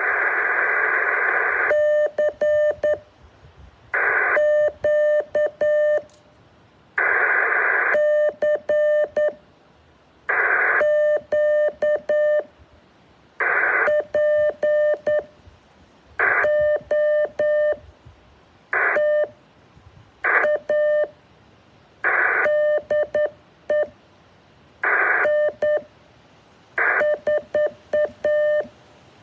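Morse code heard through a radio receiver: short groups of keyed beeps on one steady tone, repeating every two to three seconds, each group led by a brief burst of radio hiss.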